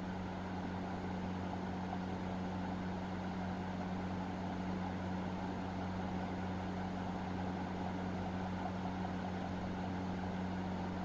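A steady low machine hum, unchanging throughout, with no distinct knocks or clicks over it.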